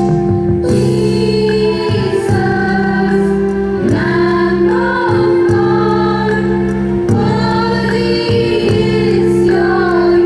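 A group of voices singing a prayer song over held, steady accompanying chords.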